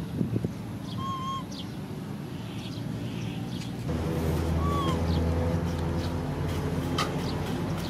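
Outdoor ambience with short bird chirps now and then. About four seconds in, a low steady motor hum sets in and becomes the loudest sound.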